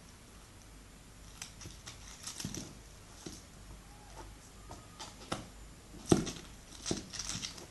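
A kitten playing with a shiny ball on a hard tiled floor: scattered light taps and clicks as the ball is batted and knocks and rolls, with paws scrabbling. The sharpest knock comes about six seconds in, followed by a quick cluster of taps.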